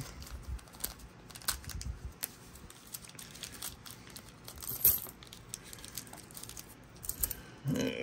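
Thin plastic coin bags crinkling and rustling as they are peeled open and handled, with scattered small clicks and a louder crackle about five seconds in. Near the end, coins clink as they are tipped out onto the mat.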